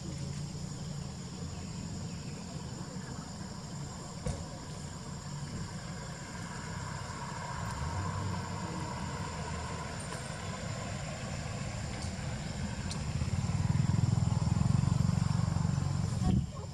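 A car engine running nearby, a low steady hum that grows louder about three-quarters of the way through, with people talking in the background. The sound cuts off abruptly just before the end.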